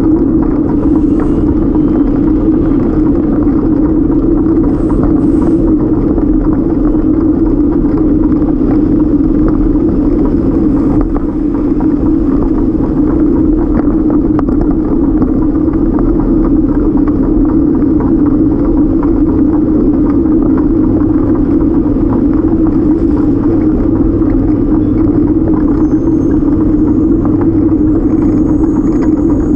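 Steady, loud, unbroken rumble of a folding bike rolling along a paved trail, picked up by a camera mounted on the bike, with car traffic on the road alongside.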